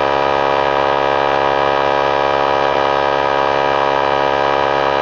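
3-gallon pancake oilless air compressor running steadily as it pumps up its tank toward its 100 psi cut-out pressure: a loud, even motor-and-pump hum of unchanging pitch.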